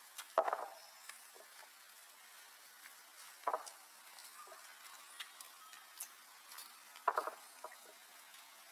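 Baby monkey suckling at its mother's nipple, making soft wet smacks and clicks: three louder ones about three seconds apart, with faint ticking between.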